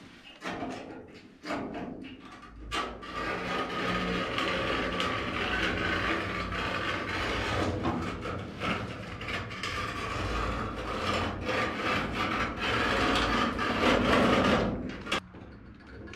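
Angle grinder cutting through a sheet-steel roof panel, a steady harsh grinding that runs on from about three seconds in and dips briefly near the end. Several sharp knocks come before the grinding settles in.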